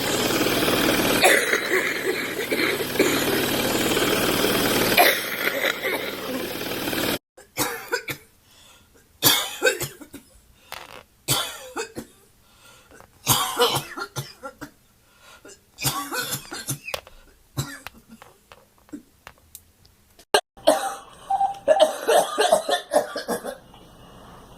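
A person coughing and clearing the throat in many short, separate bouts, with a tighter run of coughs near the end. The first seven seconds are a dense, steady noise that cuts off suddenly.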